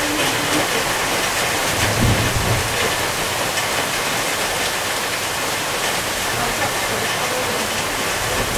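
Heavy downpour: a steady, even hiss of rain, with a brief low rumble about two seconds in.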